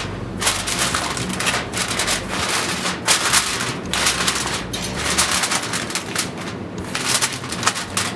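Aluminium foil crinkling in repeated irregular bursts as hands press it down and crimp it over the rim of a glass baking dish.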